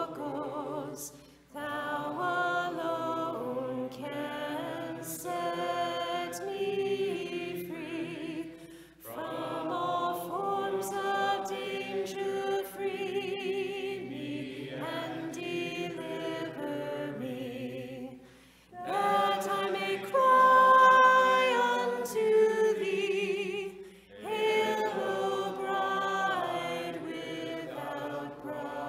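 Unaccompanied Orthodox liturgical chant sung by several voices, in long phrases with short breaks between them.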